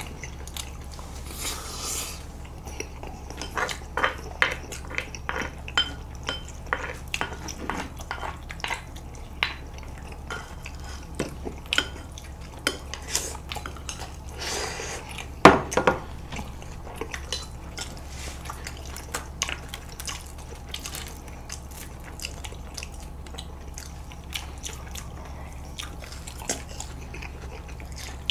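Eating at a table: forks and chopsticks clicking against plates and bowls, mixed with wet slurping of noodles and sauce. The small clicks come irregularly throughout, with one louder clack about fifteen seconds in, over a steady low hum.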